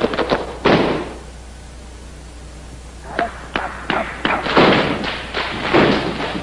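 Male folk dancers stamping their boots in unison on a stage: a run of sharp stamps, a pause of about two seconds, then the rhythmic stamping starts again and grows louder.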